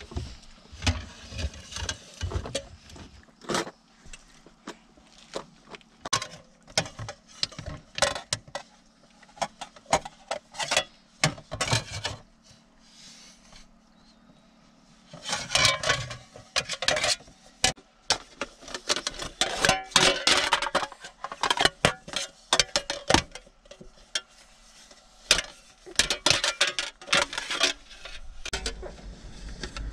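Irregular clinks and knocks in quick clusters, from an aluminium cooking pot and its lid being handled and banged together by a baby.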